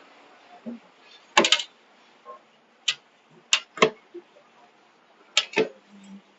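A series of sharp knocks and clicks: a quick cluster about a second and a half in, then single knocks and pairs spaced a second or two apart.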